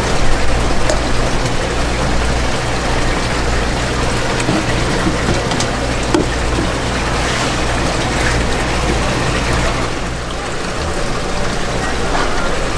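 Steady rush of running water over a constant low pump hum, with a few faint knife taps on the cutting board.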